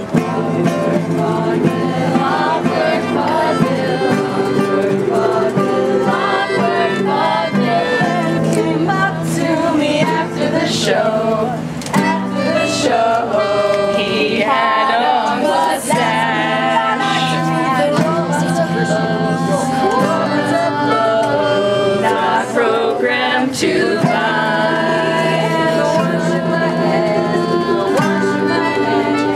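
A group of people singing a song together in unison, accompanied by a strummed ukulele.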